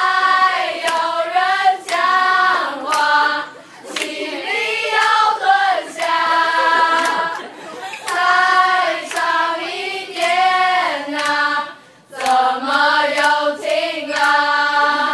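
Voices singing a melody together in held, gliding notes, with sharp hand claps through the song.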